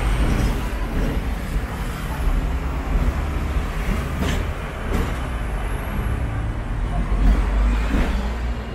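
Hong Kong double-decker electric tram running along its street rails, heard from on board: a steady low rumble, with a couple of sharp clacks about halfway through.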